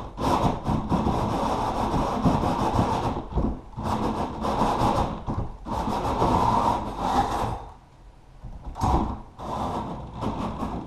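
Repeated long scraping or rubbing strokes on a surface, several in a row with short breaks between them.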